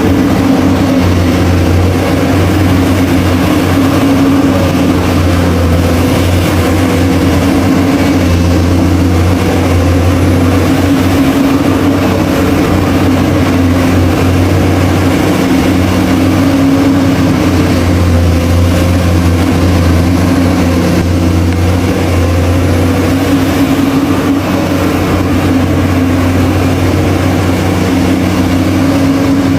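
Steady low engine drone of an RC dump truck, like a heavy diesel truck running, holding a nearly even pitch throughout.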